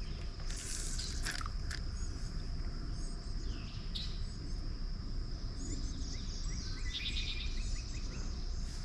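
Natural outdoor ambience: a steady high-pitched insect drone, with a few bird chirps and calls, about four seconds in and again near the end, over a low steady rumble.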